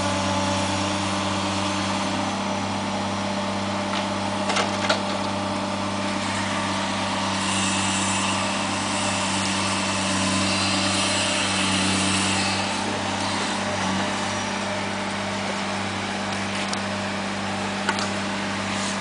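Demolition excavator's diesel engine running steadily while it works a demolition grab, with a few sharp knocks about four and a half seconds in and another near the end. A hiss rises for several seconds in the middle.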